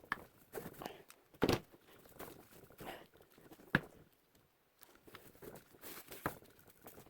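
Greasy microwave-oven parts being handled and scrubbed clean: irregular knocks and clicks of the parts being moved and set down, with short brushing scrapes between them. The heaviest knock comes about a second and a half in, and a sharp click follows about two seconds later.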